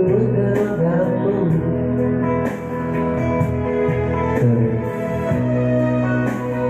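Instrumental music playing: sustained chords with a melody line, no words sung.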